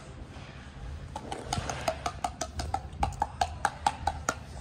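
A quick, even run of light, hollow taps, about four or five a second, starting about a second in.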